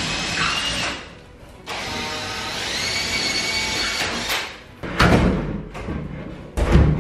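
Electric drill boring into the wall in two runs, a short one and one of about two and a half seconds, its motor whine shifting slightly in pitch. Two loud thumps follow, about five and six and a half seconds in.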